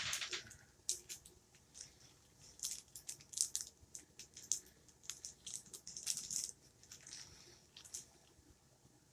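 Irregular small clicks, taps and rustles of hard plastic being handled, as an action figure's swap-out hands and accessories are pulled off and pushed on. The sounds come in clusters, the loudest a little past three seconds in and around six seconds.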